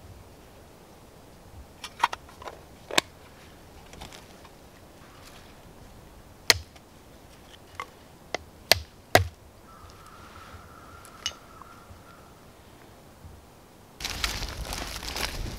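Sharp, irregular clicks of a steel striker hitting a quartz stone, about eight strikes throwing sparks onto char cloth, which catches an ember. Near the end a louder rustle of handling.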